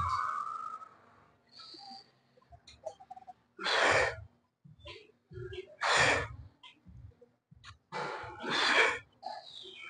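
A man breathing out hard and noisily in forceful exhalations, roughly every two seconds, as he pushes each rep on a seated chest press machine.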